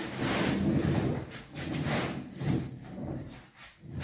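Full plastic flour sacks being shifted and pushed into place against a wall: rustling and scraping in a run of uneven swells that die away near the end.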